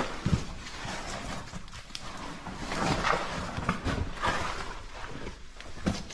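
Scuffing, scraping and irregular knocks of cavers moving over rock, with a few stronger thumps.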